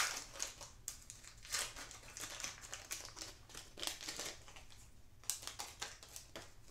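Wrapper of a Topps Trash Can Trolls trading card pack crinkling and tearing as it is opened by hand, in short irregular crackles.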